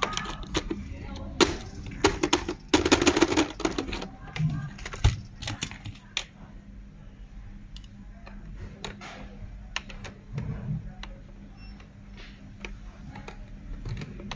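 Hard plastic clicking and rattling as a robot vacuum's bumper, wiring and housing are handled and fitted together. There is a dense run of clicks about three seconds in, then scattered single clicks.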